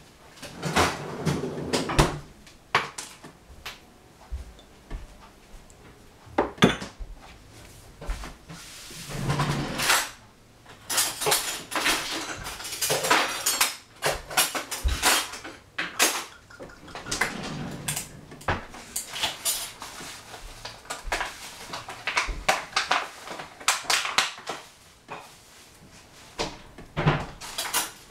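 Kitchen clatter: dishes and metal cutlery clinking and knocking in irregular bursts.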